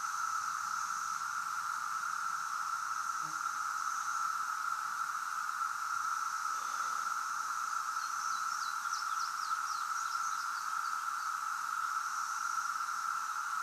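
Chorus of 17-year periodical cicadas: a steady, unbroken high drone from the massed insects. A few quick high chirps sound about eight seconds in.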